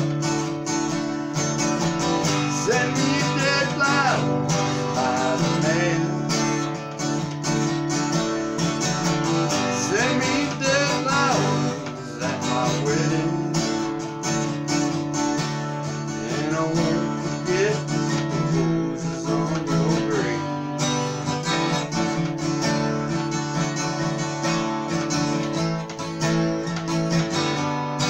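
Acoustic guitar strummed and picked, a steady run of ringing chords, with a wavering melody line above it at times.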